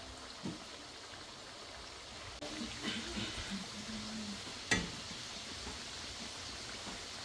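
Ripe plantain slices deep-frying in oil in a pan with a steady sizzle. A slotted metal spatula stirs and scrapes through them, with a sharp knock against the pan about two-thirds of the way in.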